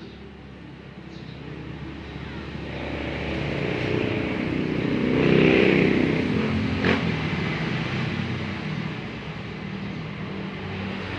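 A motor vehicle engine passing by. It grows louder to a peak about five seconds in, then fades, with a sharp click shortly after the peak.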